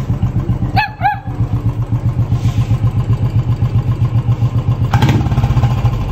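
Royal Enfield Bullet's single-cylinder engine idling with an even, fast thump. Two short high chirps come about a second in, and a sharp knock about five seconds in.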